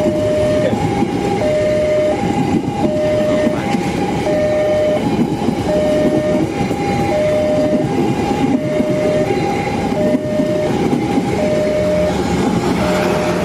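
Railway level-crossing warning siren sounding a plain two-tone hi-lo alternation, each tone held about two-thirds of a second, over the rumble and wheel clatter of a passing train.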